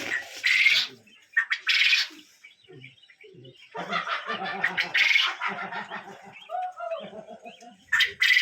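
Laying quail calling: loud, harsh chirps in short bursts, several in the first two seconds, then more, busier calling from about four seconds in.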